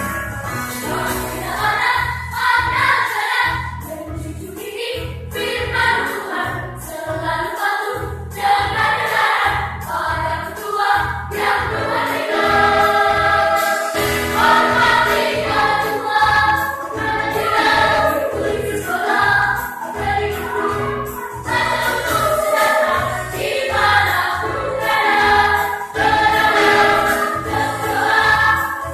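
Children's choir singing a lively song to electronic keyboard accompaniment with a steady beat.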